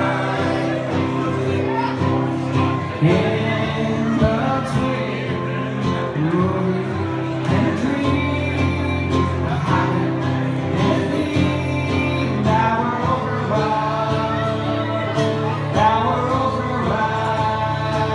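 A man singing a song to his own acoustic guitar, strumming steadily, performed live.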